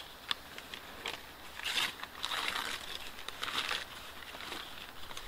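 Dry kindling and paper being handled: scattered snaps and clicks, with two longer stretches of crinkly rustling in the middle.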